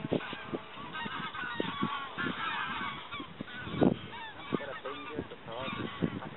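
A flock of greylag geese honking, many calls overlapping in a continuous chorus. A few low thumps come through, the loudest about halfway through.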